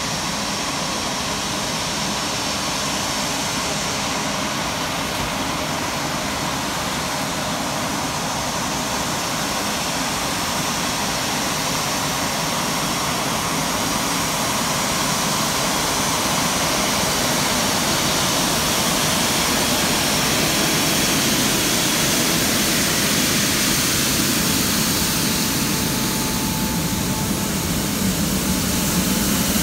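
Twin Rolls-Royce Trent XWB-84 turbofans of an Airbus A350-900 running at taxi power. The steady jet noise grows gradually louder as the aircraft approaches and passes close by, and a steady whine comes in near the end.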